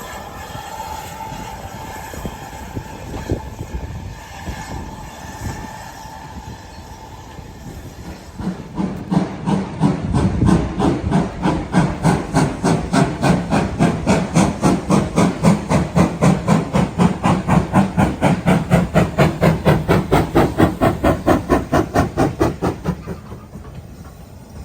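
Steam locomotive hissing, then working away with loud, regular exhaust chuffs, about three a second, which fade near the end.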